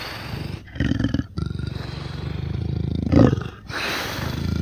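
Amur leopard calling: a run of rasping roars, each made of rapid pulses, with short breaks between them. The loudest comes a little past three seconds in.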